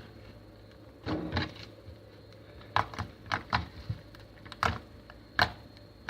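Homemade butter slime being handled and pressed: a soft squishing rustle, then a string of about seven sharp, irregular clicks and pops.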